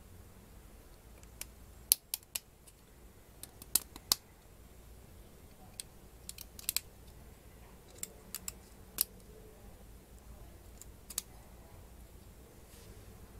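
Plastic LEGO Technic parts clicking as beams and panels are pressed onto friction pins in a frame: about a dozen sharp clicks at irregular intervals.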